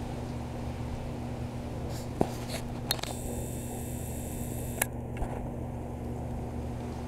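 A steady low mechanical hum, with a few sharp clicks over it, the loudest about two seconds in.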